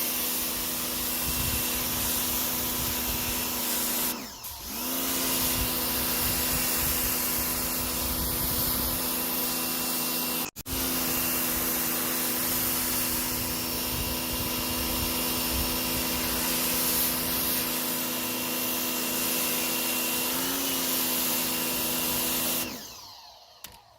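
Electric pressure washer running: its motor-driven pump hums steadily under the hiss of the high-pressure spray. It dips briefly about four seconds in, then stops shortly before the end as the trigger is released.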